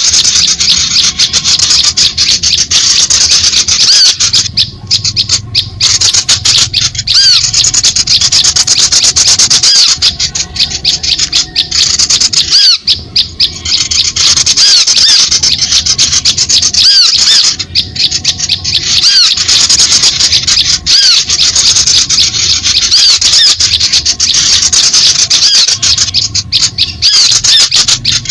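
Bird-lure recording for calling in small songbirds: a dense, loud, continuous chatter of high-pitched chirps and rapid clicking calls, with short arched chirps repeating every second or so and brief lulls every few seconds.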